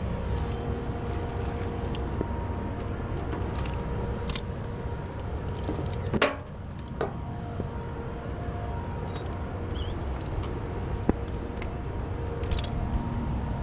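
Steady low rumble of wind and distant city traffic on an action camera high on a building face. Scattered metallic clinks of rope-access hardware come through it, with a sharper knock about six seconds in.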